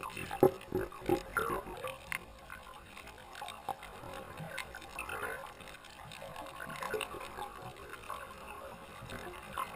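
Underwater sound from a submerged camera: muffled water sloshing and bubbling that swells and fades every couple of seconds, with scattered small clicks. A few louder knocks come in the first second or so.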